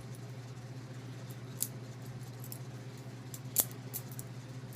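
Benchmade butterfly knife (a replica trainer) being flipped: a few sharp metal clicks of the handles and blade swinging, the loudest about three and a half seconds in. A steady low hum sits underneath.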